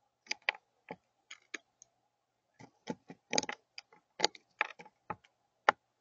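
A crow's bill pecking at seed on a feeder platform: about twenty sharp, irregular taps, bunched more closely in the second half.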